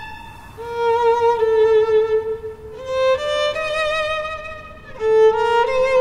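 Solo violin playing slow, held notes with vibrato. Its line climbs by steps about halfway through and drops back to the low note near the end.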